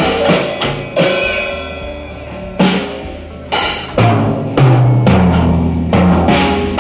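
Children banging on an acoustic drum kit: about seven loud, irregularly spaced hits on the drums and cymbals, with the cymbal crashes ringing on after the strikes.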